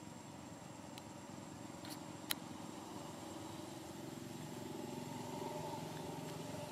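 A motor vehicle engine running steadily, growing louder from about halfway through, over a faint outdoor background. There is one sharp click a little after two seconds in.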